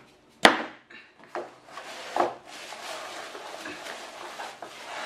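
Plastic wrapping rustling and cardboard scraping as a heavy plastic-wrapped Dutch oven is shifted in its box, with one sharp knock about half a second in.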